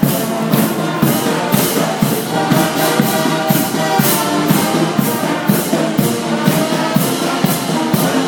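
Military marching band playing in the street: brass, including sousaphones, carrying the tune over a steady marching beat of about two percussion strokes a second.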